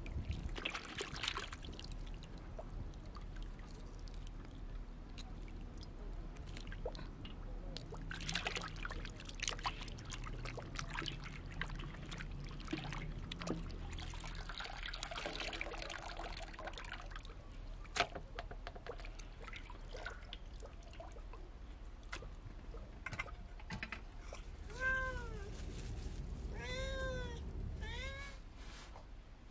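Hands sloshing and rubbing pieces of raw meat in a large metal basin of water, with small splashes and trickles. Near the end an animal gives several short rising-and-falling calls.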